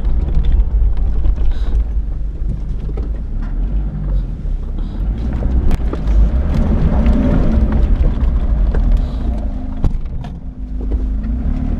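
Hyundai Galloper 4x4 running and driving slowly over a rough sandy desert track. Its engine makes a steady low rumble that strengthens a little about halfway through, with scattered knocks and rattles from the vehicle over the bumps.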